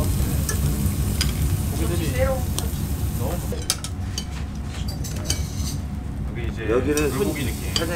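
Thin slices of seasoned beef sizzling and crackling on a gas yakiniku grill as tongs turn them, over a steady low rumble. The sizzle drops away about three and a half seconds in.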